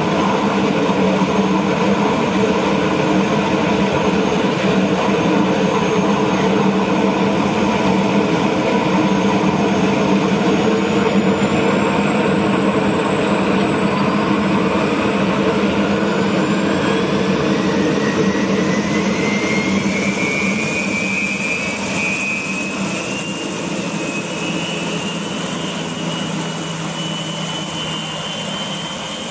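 Twin-coupled Pratt & Whitney PT6T turboshaft engines of a turbine-converted Sikorsky S-58 helicopter running during start-up, with the rotors turning: a steady engine drone, and from about halfway through a turbine whine that climbs steadily in pitch as the engines spool up.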